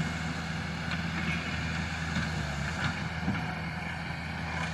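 An engine running steadily with an even low hum, and a few faint clicks over it.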